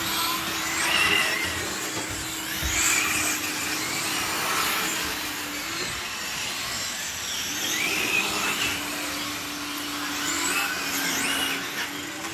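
Several 1:8-scale electric GT radio-controlled cars racing, their brushless motors whining up and down in pitch as they accelerate and brake through the corners, over a steady low hum.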